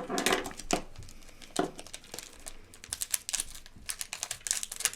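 Plastic snack wrapper crinkling as it is handled and opened, a run of irregular crackles.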